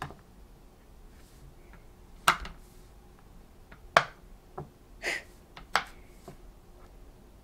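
Silicone bubbles of a Go Pop! Colorio fidget popping game pressed by fingers, one at a time: single short, sharp pops every second or two at an irregular pace.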